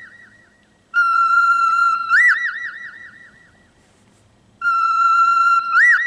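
Cockatiel whistling a learned phrase twice: a steady note held for about a second, then a jump up into a run of quick rising-and-falling notes that fade out. The second phrase starts near the end.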